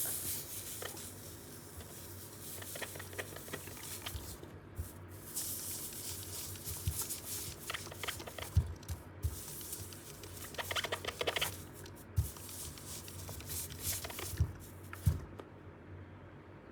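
Clothes iron pressed over a towel on a sneaker midsole, hissing in long on-and-off bursts, with occasional knocks and rubbing as it is pushed along the shoe.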